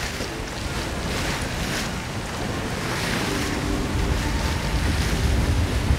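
Wind and breaking seas on a sailing catamaran in strong wind: water rushing and hissing past the hulls in surges, with wind buffeting the microphone as a heavy rumble that grows in the second half.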